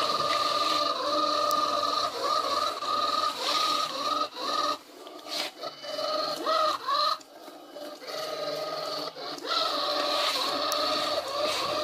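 XRobot 510D robot vacuum cleaner running, its motor giving a steady whine over the hiss of suction and brushes. In the middle stretch the whine breaks off and restarts several times with a few knocks.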